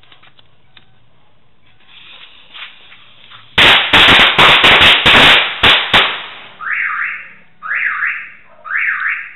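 String of eight mini firecrackers going off: a short fizz of the lit fuse, then a rapid run of very loud sharp bangs lasting about two and a half seconds. Right after, a car alarm starts, sounding a rising whoop about once a second.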